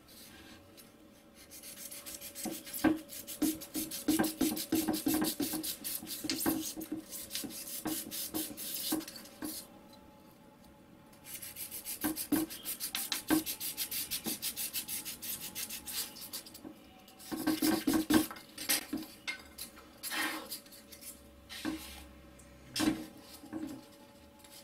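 Utility knife sawing through a block of thermocol (expanded polystyrene foam): fast back-and-forth scraping strokes in two long runs with a short pause between them, then a brief run and a few scattered knocks near the end.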